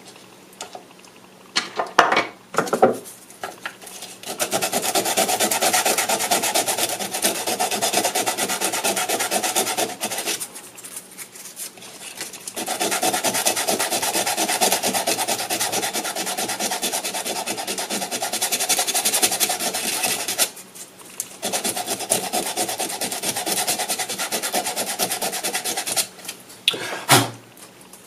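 Scraping and rubbing on a Ford Bronco's plastic instrument cluster as hands work at its circuit board. It comes in three long stretches of several seconds each with short pauses between, and a few sharp knocks near the start and near the end.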